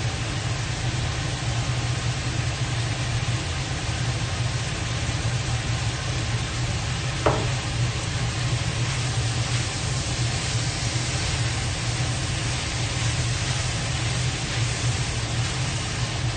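Chopped tomatoes and pork sizzling in a stainless steel wok over a steady low hum, with one sharp click about seven seconds in. The sizzle grows a little brighter partway through.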